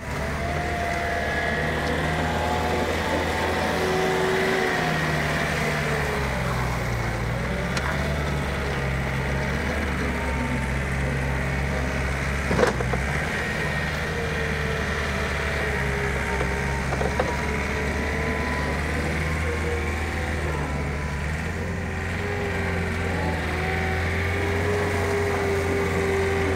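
1997 Komatsu SK07J skid steer loader's diesel engine running steadily while the machine drives and turns, with a whine that shifts up and down in pitch as it moves. A single sharp clank about halfway through.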